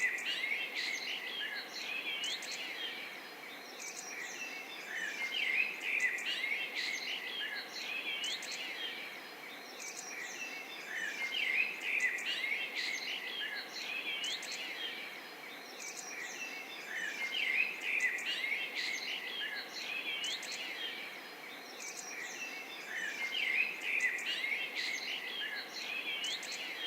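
Morning chorus of many small birds chirping and calling at once, with quick rising and falling notes over a steady background hiss. The chorus swells and thins in waves every few seconds.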